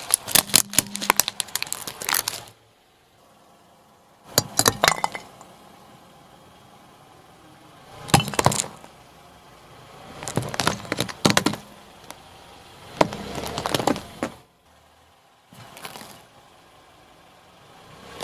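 A car tyre rolling over and crushing a series of brittle objects, among them a plastic toy and a ceramic figurine: about six bursts of cracking and crunching, each a second or two long, with short quiet gaps between them.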